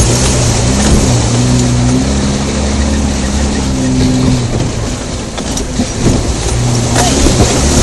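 Off-road vehicle's engine heard from inside the cabin, its revs rising and falling as it works up a steep, rutted dirt track, with a few knocks from the bumping vehicle.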